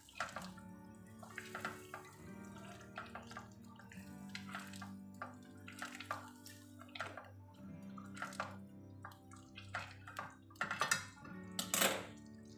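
A silicone spatula stirring chicken in a thin, oily cream sauce in a stainless steel pot: wet sloshing with repeated short scrapes and taps against the pot, loudest about eleven seconds in. Quiet background music with held low notes plays underneath.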